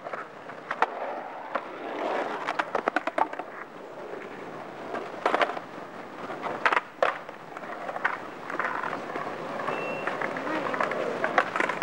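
Skateboard wheels rolling over pavement: a steady rough rumble broken by irregular clacks as the wheels cross cracks and joints, several in quick runs. A brief high tone sounds near the end.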